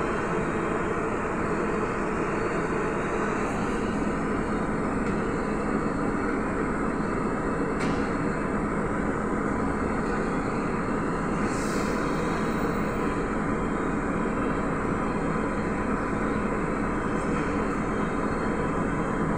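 Steady hum and noise inside the cabin of a Trolza-5275.05 Optima trolleybus, standing or creeping in traffic. A sharp click sounds about eight seconds in, and a short hiss follows a few seconds later.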